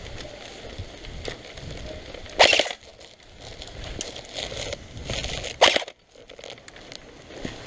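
Two short bursts of rapid fire from an airsoft gun, the first about two and a half seconds in and the second about five and a half seconds in, over rustling and handling noise from moving through grass.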